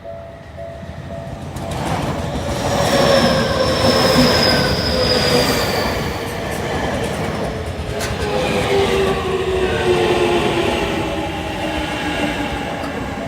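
Tokyu 5050-series electric commuter train passing close by over a level crossing, loud wheel and running noise with whines that slide slowly down in pitch. The crossing's warning bell rings in paired tones at first, before the train drowns it out about two seconds in.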